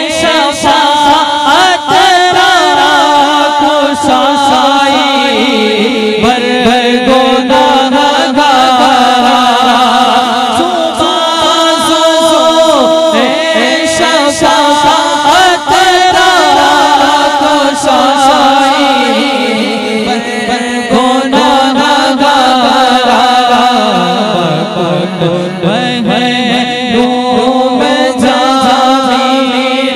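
A man singing a naat solo into a microphone, amplified through a sound system: long held notes that waver and glide slowly up and down between phrases.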